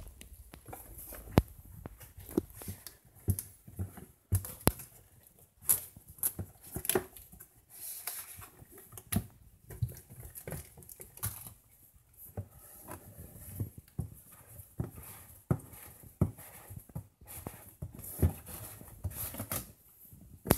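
Packaging being handled and opened by hand: irregular knocks, taps and rustles, with some tearing.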